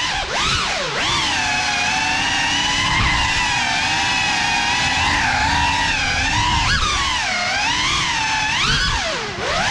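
A GEPRC Cinelog35 ducted cinewhoop's brushless motors and propellers whining, the pitch rising and falling as the throttle changes. It holds fairly steady for the first few seconds, then wavers up and down more quickly toward the end.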